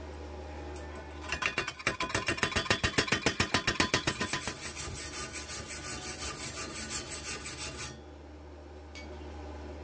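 Wire brush scrubbing the slag off a fresh stick weld bead on thin steel square tube, in fast rapid strokes of about five a second. The strokes start about a second in and stop suddenly near the end, over a steady low hum.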